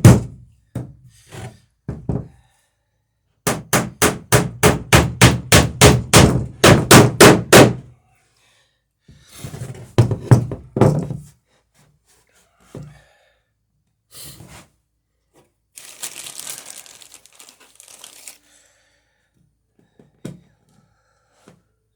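Hammer riveting a wooden dory's planking: a fast even run of about twenty sharp blows, roughly five a second, peening a rivet over, with a heavier knock before it and scattered single knocks after. A short hiss comes near the middle.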